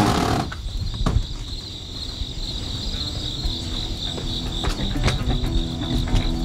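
Insects chirping, a steady, finely pulsing trill, with a few faint clicks. Low music notes begin to come in about two-thirds of the way through.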